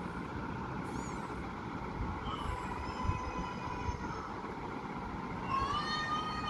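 Very young white Persian kittens mewing: a long, faint mew about two seconds in, then a louder mew near the end that rises in pitch. A steady low rumble runs underneath.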